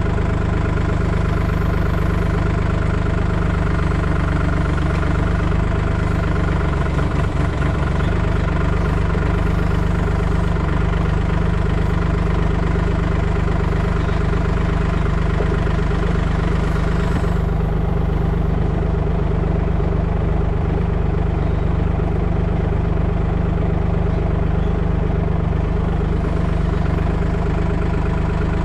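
Compact excavator's small three-cylinder diesel engine idling steadily.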